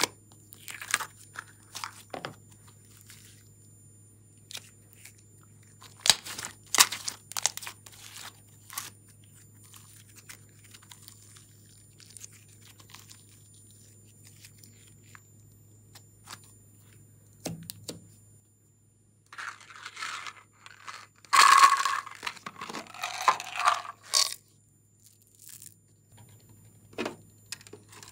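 Glossy pink slime squeezed out of a plastic container and stretched by hand, giving scattered sticky crackles and small tearing pops, with a dense run of crackling about twenty seconds in.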